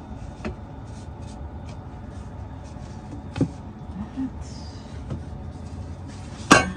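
Bottles and other items being stowed in a storage compartment: a few scattered knocks and clinks, the loudest near the end, over a steady low background noise.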